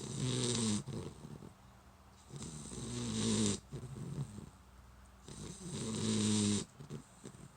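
Puppy snoring in her sleep: three long snoring breaths, each with a rough, wavering pitched tone, about two and a half seconds apart with quieter gaps between.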